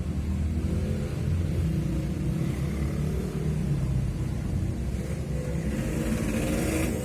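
A steady low rumble, like an engine running, with a faint hum above it in the second half.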